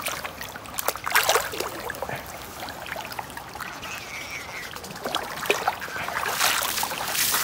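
Shallow water splashing and trickling as someone wades and works a line, with a few short sharp splashes and a longer splashy rustle near the end.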